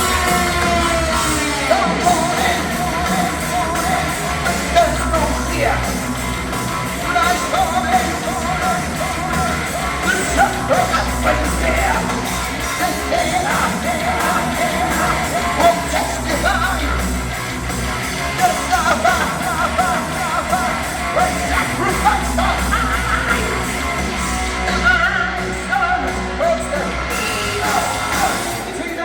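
Heavy metal band playing live with a singer over the music.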